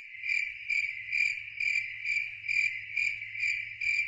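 Cricket chirping in a steady, even rhythm, about two chirps a second, fading out near the end.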